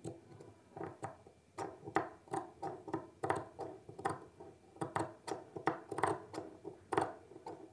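Tailor's scissors snipping repeatedly into fabric, short cuts of about two to three a second, each a crisp click with a brief metallic ring. The snips cut the slit of a stitched pocket opening toward its corner, worked carefully so the stitching is not cut.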